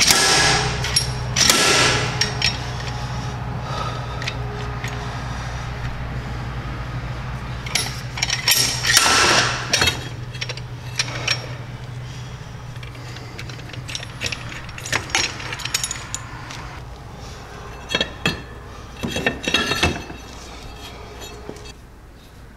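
Impact wrench hammering in short bursts on the primary drive clutch of a Polaris Trail Boss 250 ATV, with a steady low hum under the first half. Later come metal clinks and knocks as the corroded clutch is worked loose and handled.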